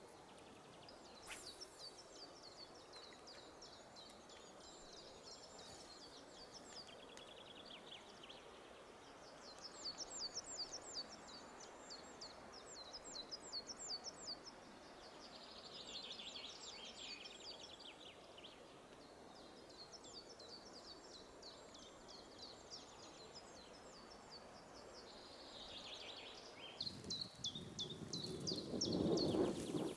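Small songbirds singing in rapid, repeated high trills over a soft, steady rush of river water. Near the end, a louder rustling and knocking close to the microphone.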